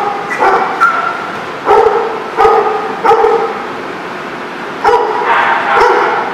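A dog barking repeatedly: about seven loud, sharp barks with a pause in the middle, echoing off hard walls.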